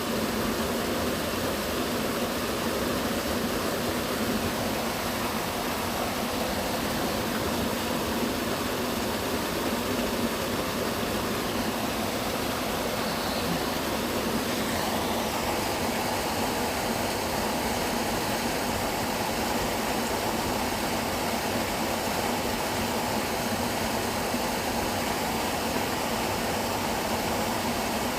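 A waterfall rushing steadily, a continuous even roar of falling water.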